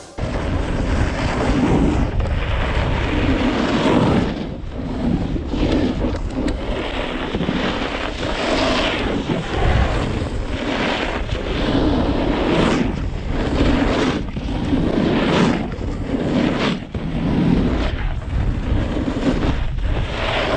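Snowboard edge carving through groomed snow in linked turns: a rushing scrape that swells with each turn, about every two seconds, mixed with wind buffeting the microphone.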